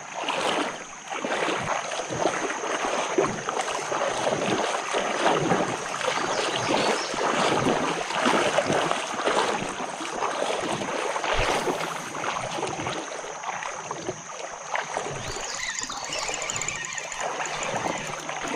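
Creek water splashing and sloshing in uneven bursts as a hooked bass is fought at the surface.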